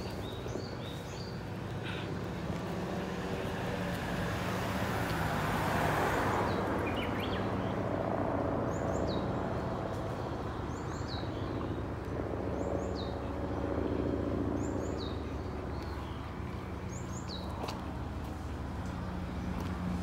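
A small songbird gives short, high, falling chirps about every two seconds over the steady hum of road traffic. A vehicle passes about five seconds in.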